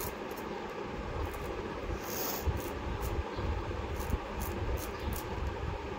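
Scissors snipping coriander stems into a plastic colander: a string of small, sharp snips at an uneven pace. Underneath runs a steady background rumble and hiss.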